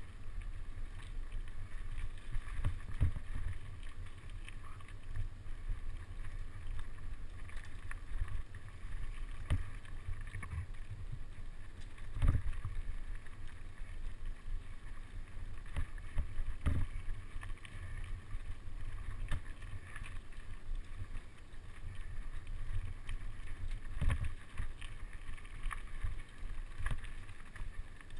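Mountain bike riding fast over a rough dirt trail: a steady low rumble of wind on the microphone and trail vibration, broken by frequent knocks and rattles as the bike hits bumps, the loudest about twelve seconds in and again near twenty-four seconds.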